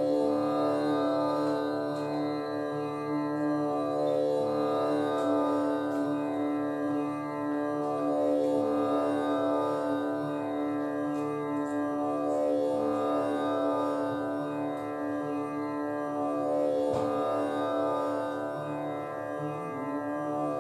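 A steady drone in the style of an Indian classical accompaniment, one note held with its overtones, sustained without a break.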